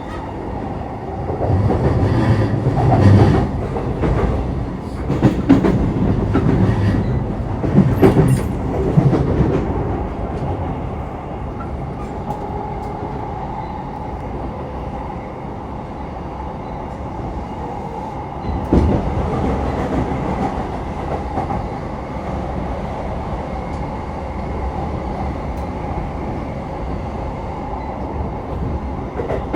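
Running sound of a JR East E233-3000 series electric train at speed, heard from inside the car: a steady rumble of wheels on rail with a faint steady tone. Over the first third it turns louder and rougher, clattering over rail joints or points, and there is a single thud a little past the middle.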